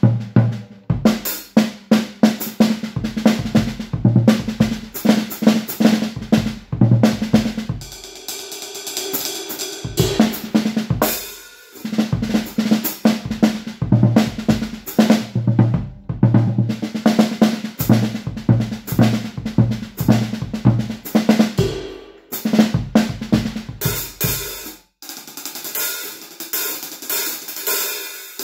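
Drum kit solo played with sticks on drums draped with a cloth: fast runs across snare and toms with bass drum and cymbals, broken by a few short pauses. Near the end the drums drop out and only cymbals and hi-hat are played.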